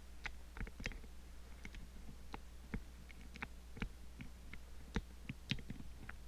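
Lock-picking tools clicking lightly and irregularly against the levers inside an Ingersoll 10-lever padlock, a dozen or so small ticks with a sharper one about five seconds in, over a steady low hum.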